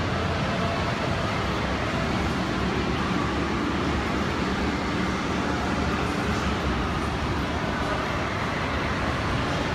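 Steady background din of low rumble and hiss, constant in level, with no distinct events.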